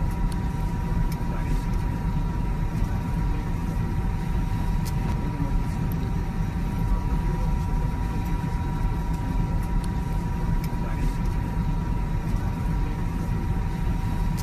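Airliner cabin noise: a steady low drone with a faint, even whine above it.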